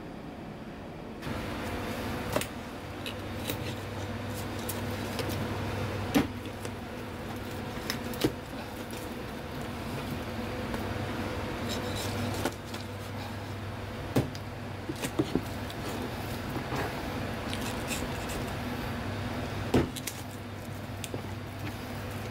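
Kitchen knife cutting stingray wing on a plastic cutting board, with a handful of sharp knocks of the blade and handling on the board, over a steady low hum.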